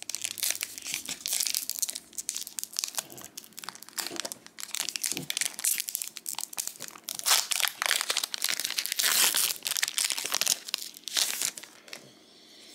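Disney Lorcana trading-card booster pack's plastic wrapper crinkling and being torn open, in dense irregular crackles that thin out near the end.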